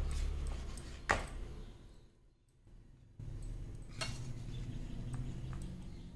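Faint kitchen handling noise with two sharp clicks of a utensil against a plate, about a second in and about four seconds in, and a short lull between them.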